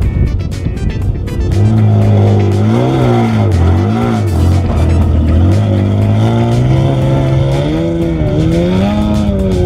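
Off-road race truck engine revving under way, its pitch dipping and climbing with the throttle and rising toward the end. Before the engine tone comes in, about a second and a half of rough clattering noise.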